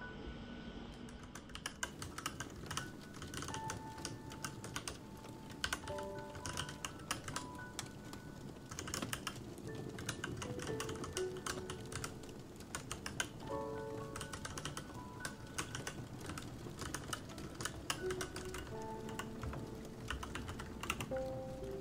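Typing on a Royal Kludge RK87 mechanical keyboard: a continuous run of keystroke clicks, starting about a second in, over soft background music.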